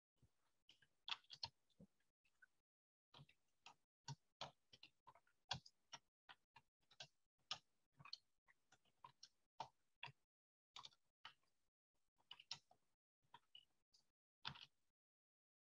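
Scattered, irregular clicks and taps of a computer keyboard and mouse being worked, a few quick clicks at a time with short pauses between.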